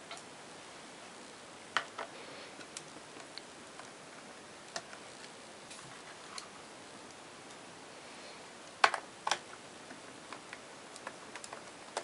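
Crosshead screwdriver taking the small drive-bay screws out of the underside of a Dell XPS M1330 laptop: scattered light clicks and taps, with a louder click about two seconds in and two more about nine seconds in.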